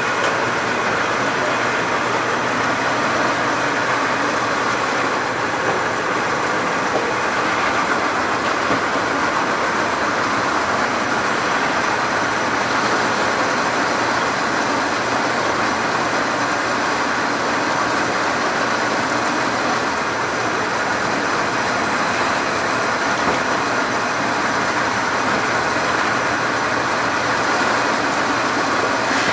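Top Tier TT-L20 low-level full-case palletizer running: the steady mechanical noise of its conveyors and drives as it forms layers of cases and stacks them onto a pallet. A faint high whine comes and goes three times.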